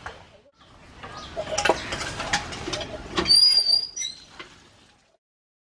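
Light clinks and knocks of cooking utensils against a steel pan, with a brief high chirp a little past the middle. The sound then fades out about five seconds in.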